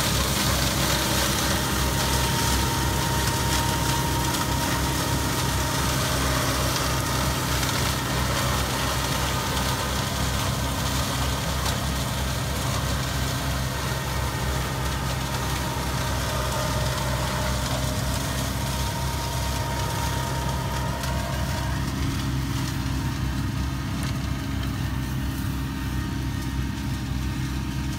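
A 95 hp tractor's diesel engine running steadily under load, powering a Muthing MU-O200 flail mulcher as it shreds bracken fern and grass. It grows slightly fainter in the last few seconds.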